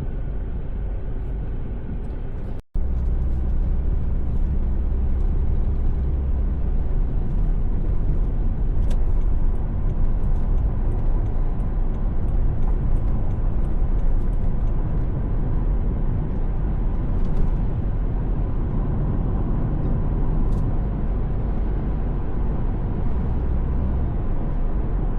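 Steady vehicle road noise, a low rumble with a faint hiss. About three seconds in it cuts out for a split second and resumes, a splice in the audio track.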